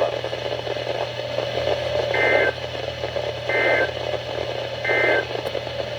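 Weather radio sending the Emergency Alert System end-of-message data code: three short two-tone digital squawks about a second and a half apart, over steady radio static. It marks the end of a severe thunderstorm warning.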